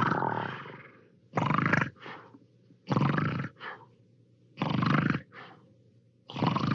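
Hanna-Barbera cartoon snoring sound effect: a rasping snore repeating about every second and a half, four times, each followed by a short, softer breath. A longer snore from before fades out in the first second.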